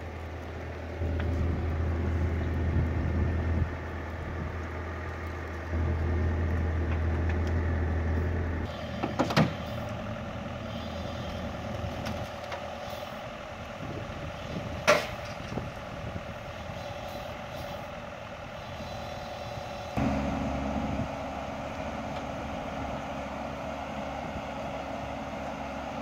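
Bobcat E42 mini excavator's diesel engine running and its hydraulics working under load as it lifts a three-quarter-ton pallet of concrete mix on pallet forks. The engine note shifts several times, and there are two sharp knocks, about nine and fifteen seconds in.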